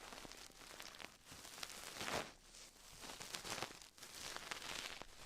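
ASMR mouth sounds close to the microphone: soft wet clicks and kissing smacks, with breathy swells between them.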